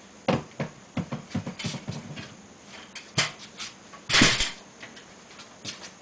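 Irregular knocks, taps and rustling as insulated air-conditioner refrigerant pipes are handled and gathered up. There is a sharp knock about three seconds in and a louder, brief scrape just after four seconds.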